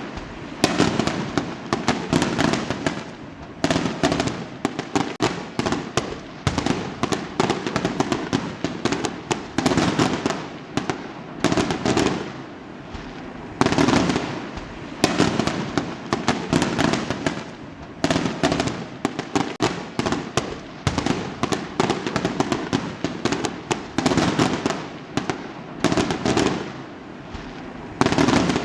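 Fireworks going off in quick succession: loud booms every second or two, each trailed by rapid crackling pops.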